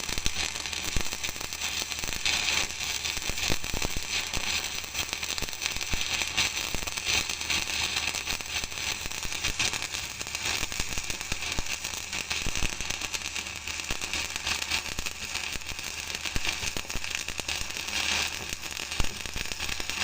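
Electric arc welding: the arc crackles and sizzles continuously for the whole stretch, with a low steady hum underneath.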